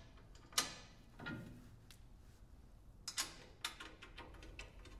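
Steel reinforcement side plate being shifted and held against a snowblower's steel side plate: a few faint metallic clicks and light scrapes as the bolt holes are lined up, the sharpest about half a second in and a small cluster about three seconds in.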